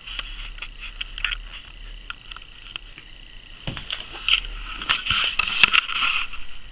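A domestic cat licking its fur: small wet clicking licks, scattered irregularly. About four seconds in, louder rustling and scraping takes over as the cat gets up and moves.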